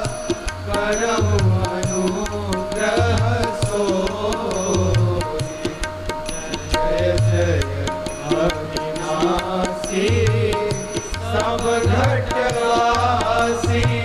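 Background music: a sung melody over a held drone, with a low drum beat about once a second.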